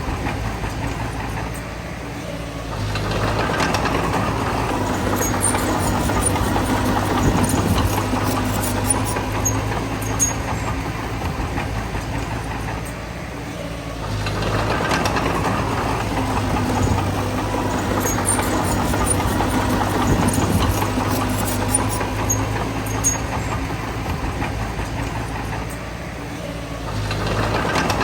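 Bulldozer's diesel engine working steadily. It grows louder twice in long stretches of about ten seconds each, as it works under load, and eases back in between.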